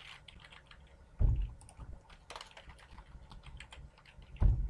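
Typing on a computer keyboard: a quick, uneven run of key clicks. Two dull, deep thumps about a second in and again near the end are louder than the keys.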